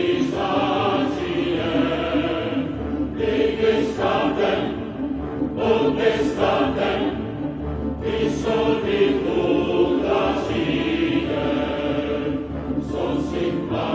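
Background music of voices chanting in chorus, swelling in phrases every couple of seconds.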